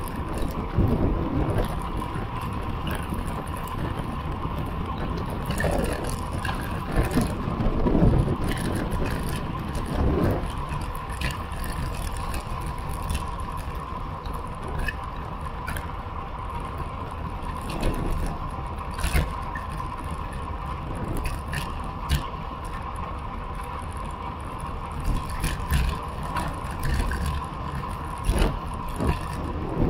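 Road bicycle rolling along asphalt, heard from a camera mounted on the bike: steady tyre hiss and wind on the microphone with low gusts, scattered sharp clicks and rattles as the bike goes over bumps, and a thin steady tone underneath.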